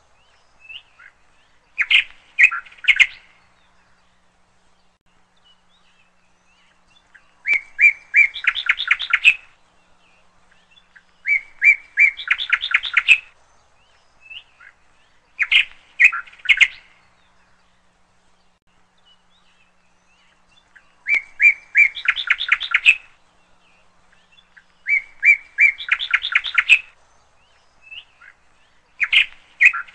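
A bird chirping in short, rapid trilled phrases that recur every few seconds.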